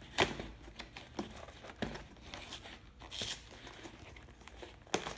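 Heavy-duty cardboard mailer being torn open by hand at its sealed flap: several short, sharp rips with crinkling in between, the loudest about a quarter second in and again near the end.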